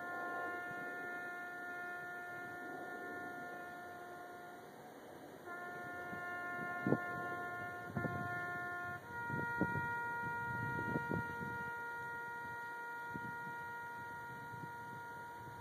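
Military brass band playing a slow piece in three long held notes, each sustained for a few seconds. A few soft knocks come near the middle.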